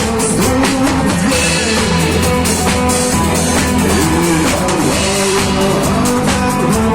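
Live rock band playing a song: a steady drum kit beat with guitars and a singing voice.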